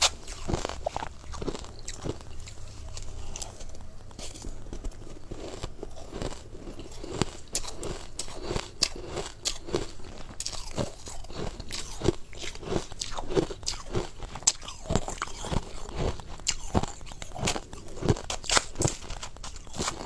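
Crushed ice being bitten and chewed close to the microphone: a dense, irregular run of crisp crunches and crackles.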